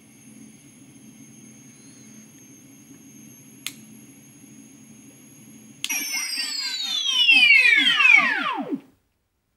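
Replica Ghostbusters proton pack sound effects: a steady electronic idle hum with a thin high whine, a single click a little before the middle, then a sudden loud burst of many overlapping falling electronic sweeps that winds down and cuts off about three seconds later.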